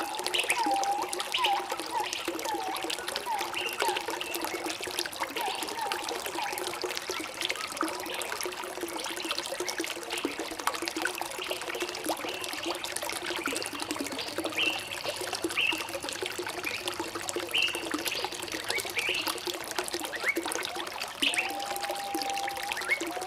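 Water trickling and pouring steadily while birds sing: a run of short repeated chirps at first, higher chirps in the middle, and a longer held whistle near the end.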